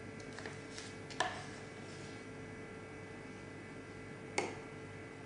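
A metal spoon clinks sharply twice against a small ramekin as Greek yogurt is scooped in, with a few lighter ticks before the first clink, over a steady electrical hum.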